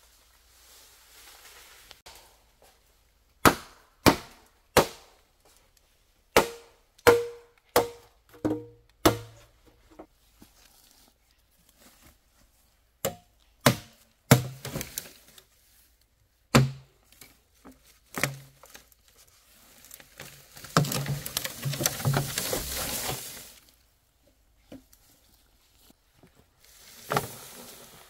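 Chopping on wood: sharp strikes about one every 0.7 s for several seconds, then scattered single blows, with a few seconds of rustling about three-quarters of the way through.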